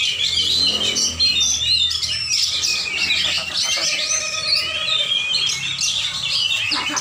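Oriental magpie-robin (kacer) singing a fast, continuous stream of varied chirps and whistles.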